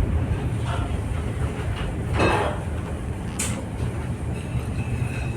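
Ship under way at sea: a steady low rumble, with a brief rushing sound about two seconds in and a sharp click a little later.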